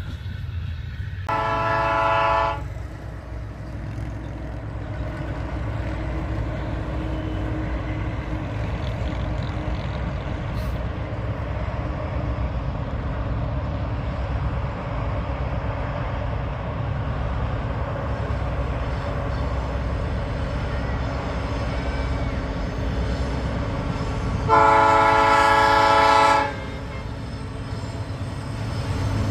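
Diesel freight locomotive horn sounding two long blasts, a short one about a second in and a longer one of about two seconds near the end, over the steady low rumble of a passing freight train.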